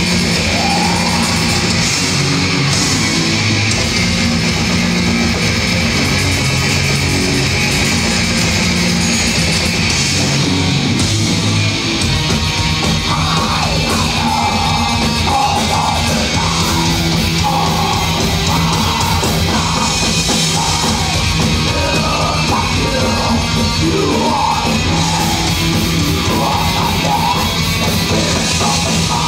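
Heavy metal band playing live, with electric guitars and drums in a loud, dense wall of sound. A vocal comes in over the band about halfway through.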